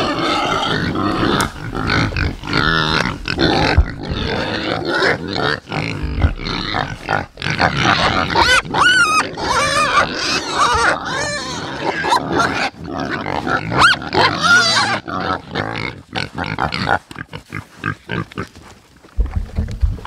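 A group of pigs grunting and squealing excitedly at a wire fence, a dense, irregular chorus that is busiest in the middle and thins out near the end.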